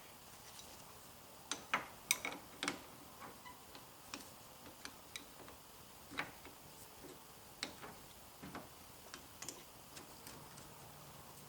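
Sparse, irregular light metallic clicks and taps from hand tools working on a car's A/C line fittings, with a small cluster of them about two seconds in.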